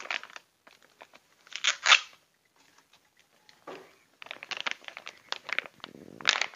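A clear plastic pouch of dried bajakah root chips being torn open and worked apart by hand: a couple of sharp plastic rips about two seconds in, then a run of crinkling and crackling plastic with another loud rip near the end.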